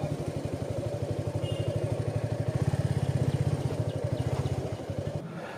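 Motorcycle engine idling with a fast, even pulsing beat, which cuts off abruptly about five seconds in.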